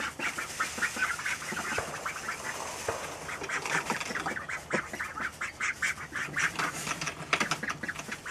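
A small flock of domestic ducks quacking in a quick, continuous chatter of short calls, growing busier about three seconds in.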